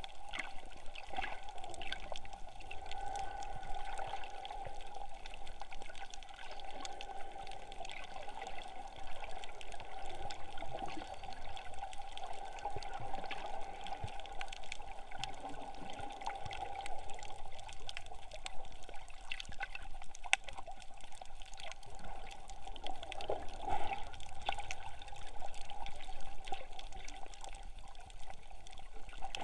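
Underwater sound picked up by a camera held just below the surface over a coral reef: muffled water noise with many scattered sharp clicks and a steady mid-pitched tone.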